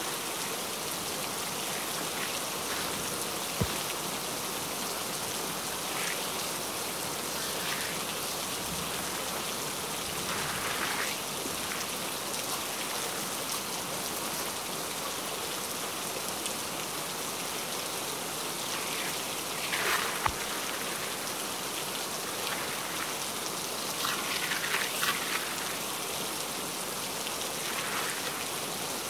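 Steady rain falling, with several short crinkles of a plastic sheet being spread and smoothed by hand.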